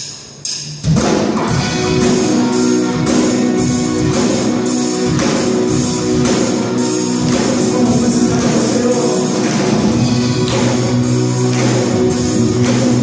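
Band playing a rock-style worship song with guitars and drums. A few short hits open it, then the full band comes in about a second in on a steady beat.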